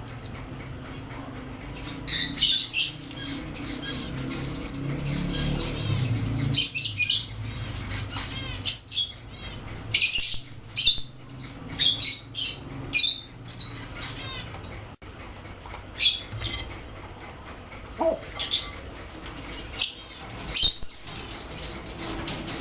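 African grey parrots giving short, high-pitched squawks and whistles, about a dozen scattered through, some with a warbling wobble, over a low steady hum.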